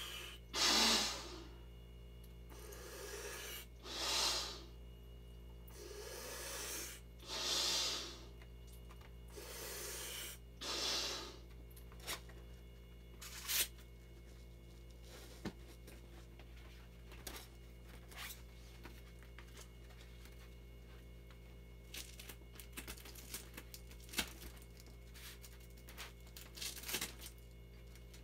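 Inflatable vinyl cooler being blown up by mouth: four rounds of a deep breath in, each followed by a louder blow into the valve, about every three and a half seconds. For the second half, only scattered soft clicks and crinkles of the vinyl and valve being handled.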